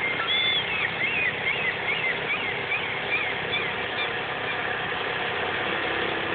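A gull calling: a run of short cries that rise and fall in pitch, several a second, dying away about three seconds in. Under it runs a steady mechanical hum.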